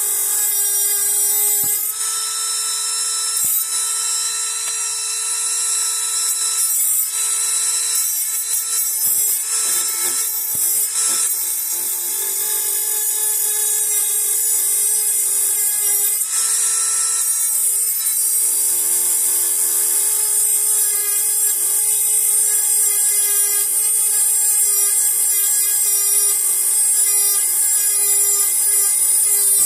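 High-speed handheld rotary tool running continuously as it cuts through bars on an AK-47. It gives a steady high whine that wavers briefly a few times as the cut loads it.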